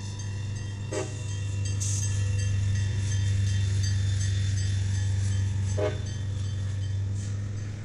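Freight train of flatcars loaded with containers rolling past: a steady low rumble that swells through the middle and fades near the end, with two short metallic clanks, about a second in and near six seconds.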